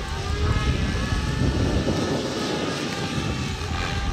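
Radio-controlled model helicopter flying overhead: a steady whir from its rotor and motor, its pitch shifting slightly as it manoeuvres.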